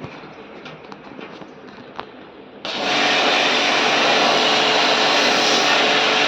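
A pressure washer cleaning an air conditioner starts suddenly about two and a half seconds in and runs steadily: a motor hum under a loud hiss of spraying water. Before it starts there are a few light clicks and one sharp tick.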